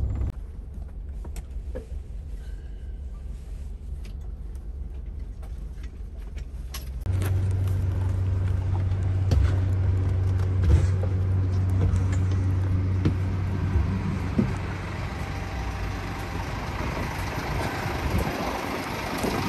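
Double-decker highway coach's diesel engine idling as a low steady hum: faint at first, then much louder from about seven seconds in, heard close to the engine in the lower deck and at the door, with a few footsteps and clicks. Near the end it gives way to outdoor wind noise on the microphone.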